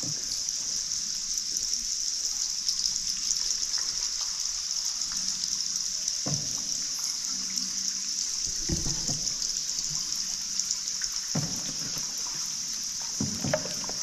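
Ambience inside a limestone river cave: water dripping and trickling under a steady high-pitched chirring of insects.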